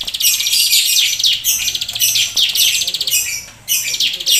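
Plain prinia (ciblek sawah) singing rapid, high, buzzy trilled phrases one after another, with a short break about three and a half seconds in.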